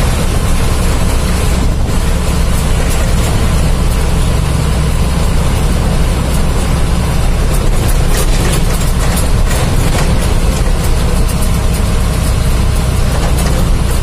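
Steady drone of a road vehicle cruising on a highway: a deep engine rumble under constant road and tyre noise, even throughout.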